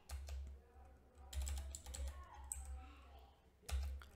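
Computer keyboard typing: irregular clusters of keystrokes, the loudest group near the end, over a steady low hum.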